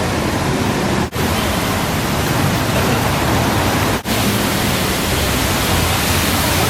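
Heavy rain pouring down as a loud, steady hiss, broken by two very short dropouts, about a second in and about four seconds in.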